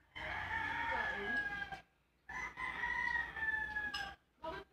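Rooster crowing twice: two long calls, each falling slightly in pitch, the second starting a little after two seconds in.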